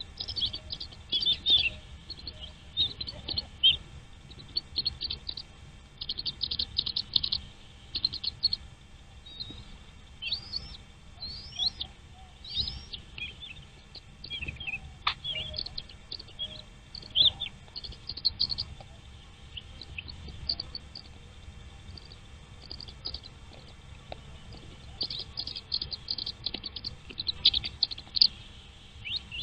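Small birds chirping: repeated clusters of short, high-pitched cheeps, some rapid runs and some single sweeping notes, with a faint low rumble underneath.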